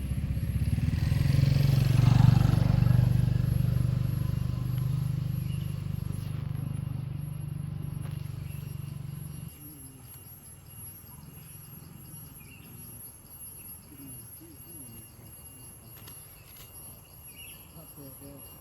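A motor vehicle's engine running close by, loudest about two seconds in and then slowly fading, until it cuts off suddenly about halfway through. Faint bird chirps follow over a quiet background.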